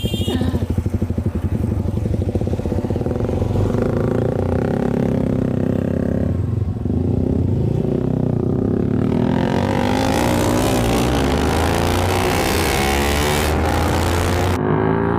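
Two single-cylinder sport motorcycles with aftermarket exhausts, a KTM Duke 200 and a Yamaha R15 V4, running together under throttle. Their exhaust notes rise and fall with the revs, dipping about six seconds in, and from about nine seconds on the two engine pitches glide up and down across each other.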